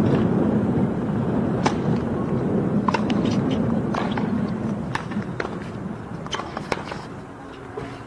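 Tennis rally on a hard court: several sharp knocks of racket strikes on the ball and the players' footwork, over a steady low background rumble that eases in the second half.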